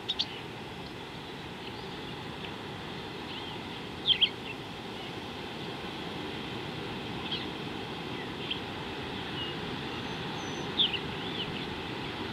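Wild birds calling in short, sharp chirps: a pair right at the start, a loud pair about four seconds in, a few single calls after, and a loud cluster near the end, over a steady low background rumble of outdoor noise.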